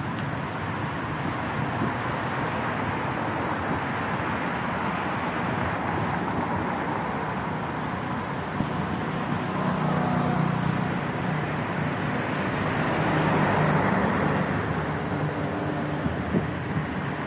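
Street traffic noise: a steady hiss of vehicles on the road, with one motor vehicle's engine growing louder and passing about nine to fifteen seconds in.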